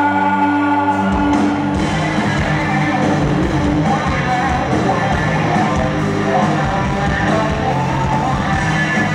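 Live rock band playing with distorted electric guitars, drums and singing. A held chord rings steadily, then about a second in the drums and full band come back in and play on.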